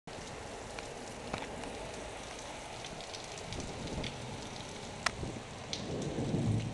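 Heavy thunderstorm rain pouring steadily, with sharp drops ticking now and then on a nearby surface. A low rumble builds near the end.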